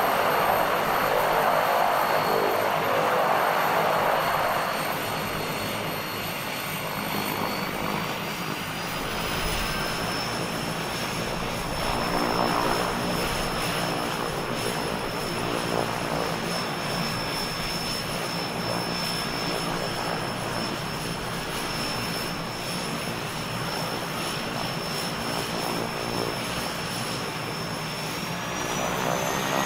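Beechcraft King Air twin turboprop's Pratt & Whitney PT6A engines running on the ground, heard from outside: a steady propeller and turbine drone with a high turbine whine. The whine steps up in pitch about a third of the way in and again near the end.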